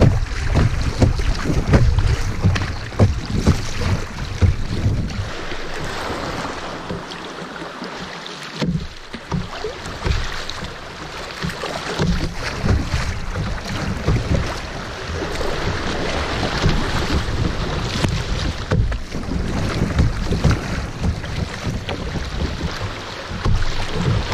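Shallow river riffle rushing and splashing around a kayak's bow, with wind gusts buffeting the microphone in uneven low rumbles.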